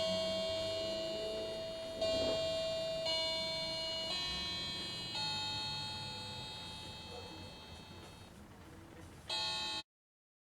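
A slow melody of bell-like chime notes, each struck and left to ring and fade, about one a second for the first five seconds, then a long fade and one more note that cuts off suddenly near the end.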